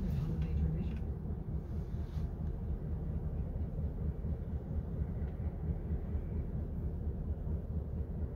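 Distant CN diesel locomotive running, heard as a steady low rumble.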